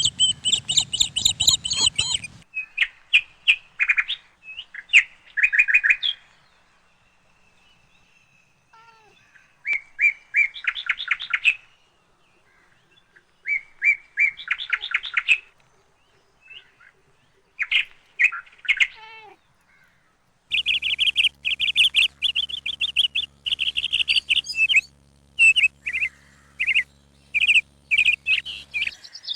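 Small birds chirping in quick trilled bursts a couple of seconds long, with quiet gaps between them. In the last third the chirping comes more densely over a faint low steady hum.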